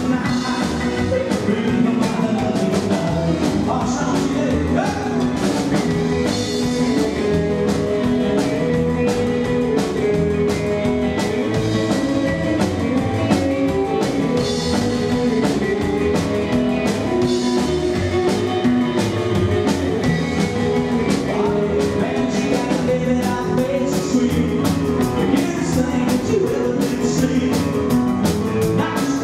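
A live rockabilly band playing rock 'n' roll: drum kit, double bass, piano and acoustic guitar, with a steady driving beat.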